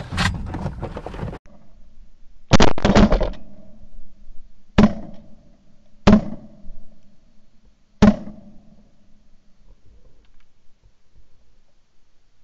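Shotgun blasts heard from a barrel-mounted camera, so they come through as sharp thuds with a short ring: a quick volley of several shots about two and a half seconds in, then three single shots roughly one and a half to two seconds apart. Before them, a loud rustling noise cuts off suddenly.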